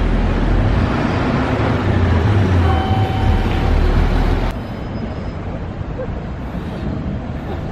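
A car driving through a street intersection with tram tracks: steady road and tyre noise with a low rumble. It cuts off abruptly about four and a half seconds in, leaving quieter city street background.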